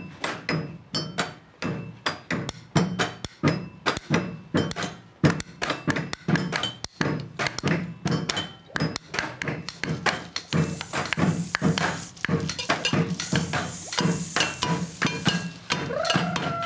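Improvised percussion instruments made from household objects played together: a fast, continuous run of knocks and taps with some clinking glass. About ten seconds in, a steady high hiss joins.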